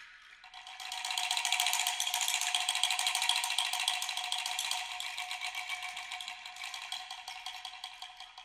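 Shaken rattle in a percussion piece: a fast, dense rattling that builds up about a second in and slowly fades toward the end, over a steady ringing tone.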